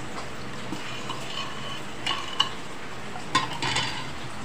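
A metal spoon stirring a liquid sauce in a bowl, with a few light clinks of the spoon against the bowl about two seconds in and again about three and a half seconds in, over a steady hiss.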